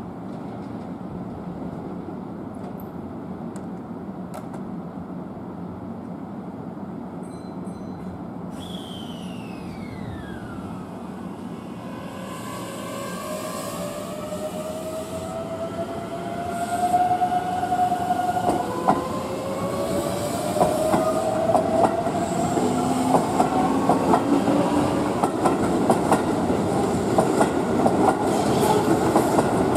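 Keihan 7000 series electric train standing, then pulling away. For the first part it hums steadily at rest, and a falling tone comes about nine seconds in. Then its inverter-driven traction motors whine, rising in pitch, dropping back and rising again near the middle, while the wheels clatter more and more loudly as it gathers speed.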